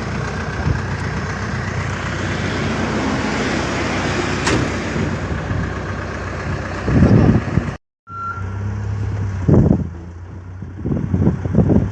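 A heavy vehicle's engine running steadily, a low hum with noise over it. It cuts out suddenly about eight seconds in, comes back, and then has a few short louder surges.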